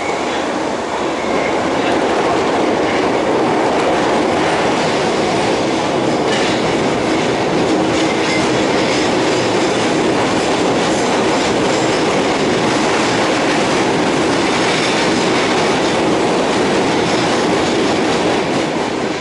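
Osaka Metro 22 series subway train (Hitachi GTO-VVVF) running at speed, heard from inside the car: a loud, steady rumble of wheels on rail with the clickety-clack of rail joints.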